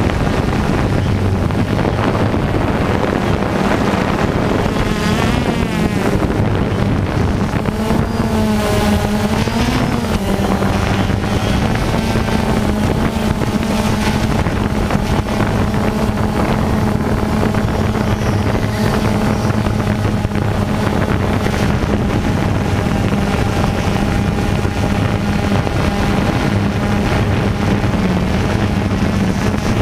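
Radio-controlled off-road cars running on a dirt track, a steady buzzing engine drone whose pitch wavers up and down around a third of the way through.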